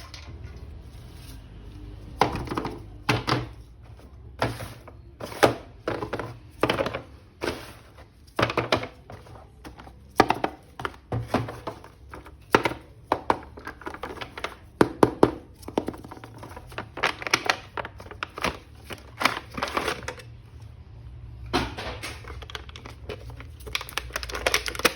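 Hands handling plastic action figure toys: irregular sharp clicks and knocks, with a lull near the end, over a steady low hum.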